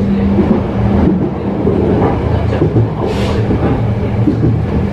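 Tokyo Metro 03 series electric commuter train heard from inside the car while running: steady wheel-on-rail rumble with a low hum from the running gear, and a short hiss about three seconds in.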